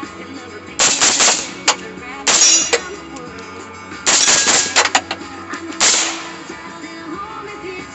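A string of gunshots at irregular intervals, with a quick cluster of several shots about four seconds in, over background music.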